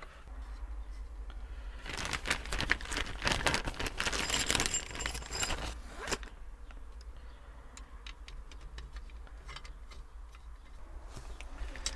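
Handling noise while an auto-steering wheel kit is fitted to a tractor steering wheel: a plastic parts bag rustles and small parts scrape and click. It is dense for about four seconds from about two seconds in, then thins to scattered clicks and taps, over a low steady hum.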